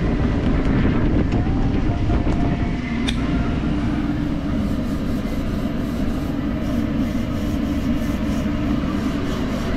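Steady low mechanical rumble at a constant level, with a few light clicks and clatters on top.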